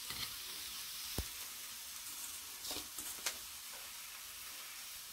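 Oil and onions sizzling softly in a stainless steel kadai as handfuls of chopped beetroot leaves are dropped in. A light knock comes about a second in, and a few short clicks follow around three seconds in.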